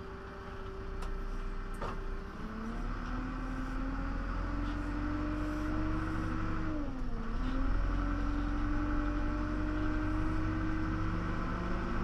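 John Deere 310 SG backhoe's four-cylinder diesel engine running as the machine drives along, heard from inside the cab. Over the low rumble a whine drops in pitch twice, about two and a half and seven seconds in, and climbs back each time. Two light clicks come in the first two seconds.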